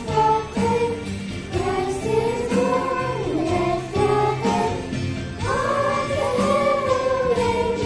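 A children's choir singing a song together, holding long notes that glide between pitches.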